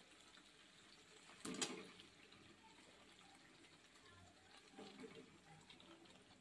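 Raw mutton pieces tipped into a wok of fried spice paste: a brief wet slap about one and a half seconds in and a softer one near five seconds, otherwise near silence.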